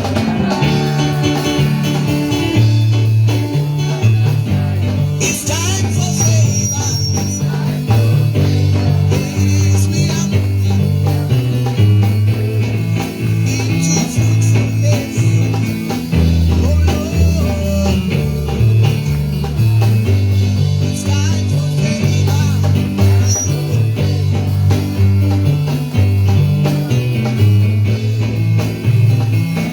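Live church praise band playing an instrumental stretch with electric guitar and bass over a steady beat.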